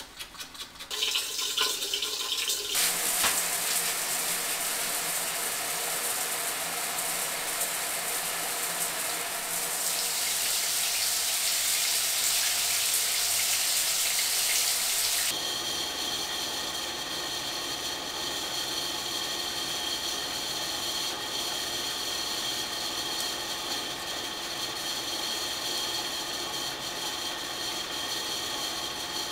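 Brief rhythmic toothbrush scrubbing, then water running steadily from a shower or tap. About fifteen seconds in the water rush gives way to a steady hum with several steady tones.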